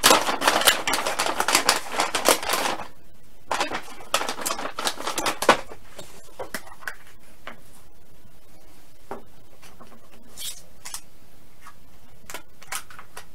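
Crinkling of a plastic dog-treat pouch as a hand digs in for treats, over the first few seconds and again briefly after a pause, then scattered light clicks and taps of hollow plastic Easter eggs being handled and opened on a table.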